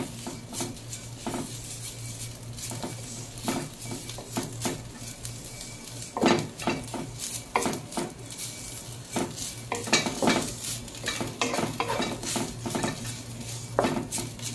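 Wooden spatula scraping and knocking against a nonstick pan in quick, irregular strokes while stir-roasting dried jute mallow (molokhia) leaves, with a light sizzle underneath.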